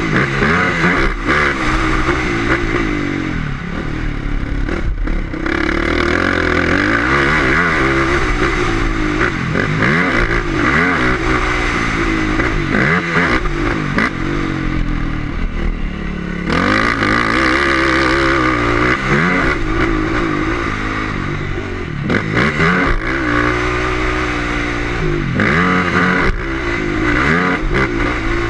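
Motocross dirt bike engine ridden hard, its pitch climbing and dropping over and over as the rider accelerates, shifts and rolls off the throttle.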